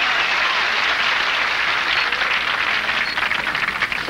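Studio audience applauding, thinning out into more separate claps over the last couple of seconds.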